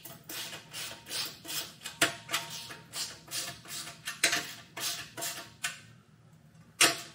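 A wrench tightening the locking nut on a beach cart's axle bolt, clicking in quick, even strokes about two or three times a second. The strokes stop about six seconds in, once the nut is snug, and one sharp click follows near the end.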